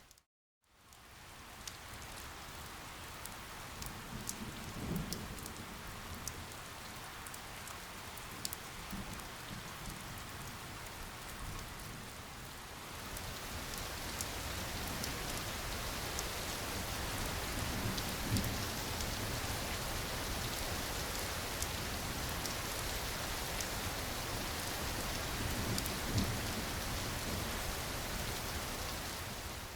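Steady rain falling, with single drops ticking through it. A few low rumbles of distant thunder come through. The rain cuts out for a moment right at the start, then comes back and grows heavier about halfway through.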